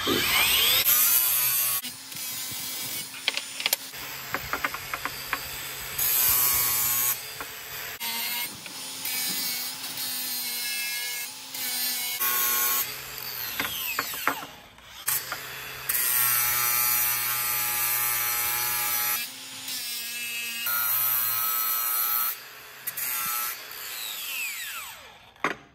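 Angle grinder with a ceramic alumina flap disc grinding a bevel into an aluminum motor-mount plate. It runs in several short passes, a motor whine with hissing grinding noise, and winds down between passes with a falling whine.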